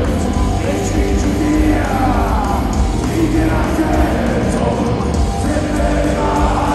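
Hard rock band playing live in a large arena, heard from the audience: electric guitar, drums and a lead singer, with some crowd voices underneath.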